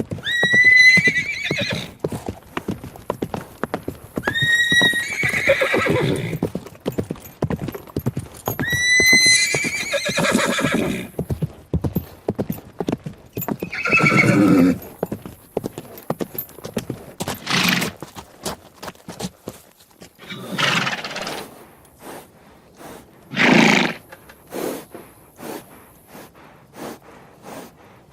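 Horses whinnying several times, high calls near the start, about four seconds in and about nine seconds in, then lower calls later, with hooves clopping throughout.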